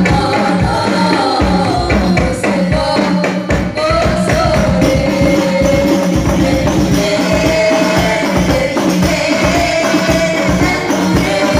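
Women singing a sholawat melody together through microphones, over a steady quick beat of rebana frame drums played as a group.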